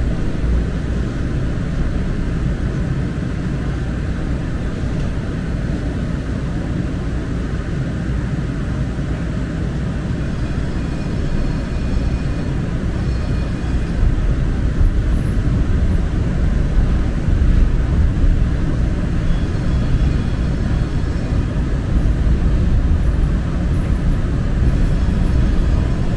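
San Francisco Muni Metro light-rail train in motion, heard from inside the car: a steady low rumble of wheels on track, growing a little louder about halfway through, with faint high-pitched tones coming and going.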